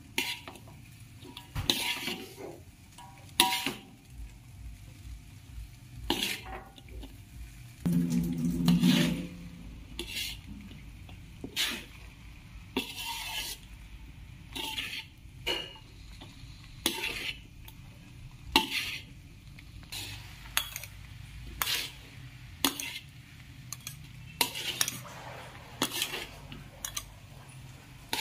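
Spatula scraping and clanking against a metal wok as fried noodles are tossed, in irregular strokes about once or twice a second over a faint sizzle. A longer low sound about eight seconds in is the loudest moment.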